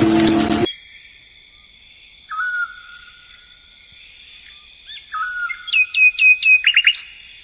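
Wild birds calling: a short whistle that rises sharply then holds a flat note, given twice, and a quick run of falling notes near the end, over a faint steady high background tone. Music plays briefly at the very start and cuts off under a second in.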